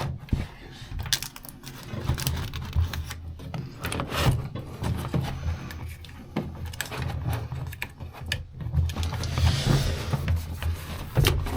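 Handling noises from working sheets of sound-insulation material: scattered clicks, knocks and scrapes over a steady low hum, with a short hiss near the end.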